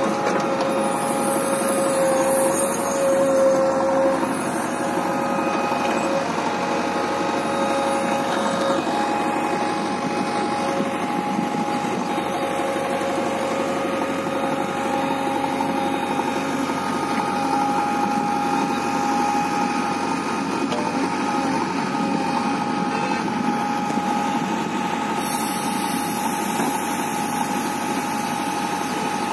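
JCB 3DX backhoe loader's diesel engine running steadily under load, with steady whining tones over it, as its loader arm and stabilizers lever the machine onto a truck bed; a little louder for a moment a few seconds in.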